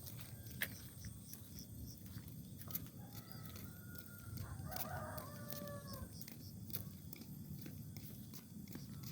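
A rooster crowing once, faint, a single drawn-out call of about three seconds starting about three seconds in.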